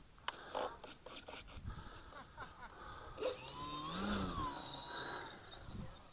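Electric RC model airplane motor whining, its pitch rising then falling over about two seconds, after a few sharp clicks and knocks in the first second or so.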